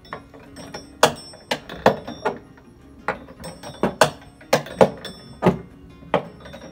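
Porch swing's chains and dry metal eyelet hardware clanking as it swings, with sharp metallic knocks about twice a second and a faint ring after them. The noise is bare metal rubbing and knocking on metal.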